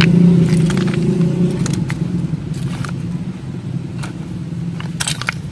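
A low, steady hum that weakens over the first few seconds, with scattered sharp clicks of stones being handled.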